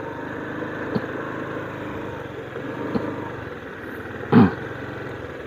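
Motorcycle engine running steadily at low speed while the bike rolls along, with faint ticks about one and three seconds in. About four and a half seconds in, a short voice-like sound falling in pitch is the loudest thing.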